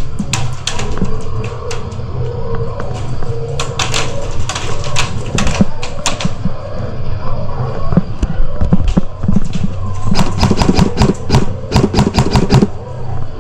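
Airsoft guns firing: scattered sharp shots, then a rapid burst of shots about ten seconds in that lasts a couple of seconds.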